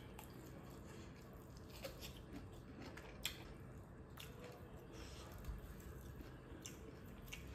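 Faint mouth sounds of someone chewing food, with a few short, wet clicks scattered through, the sharpest a little past three seconds in.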